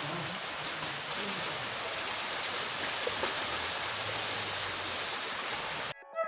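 Heavy rain falling steadily, an even hiss of water that cuts off suddenly near the end.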